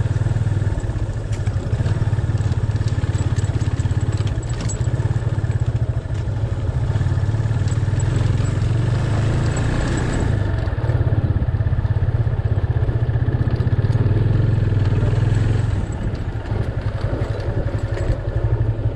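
Motorcycle engine running steadily under way, with light rattling over a rough road; the engine eases off about three-quarters of the way through.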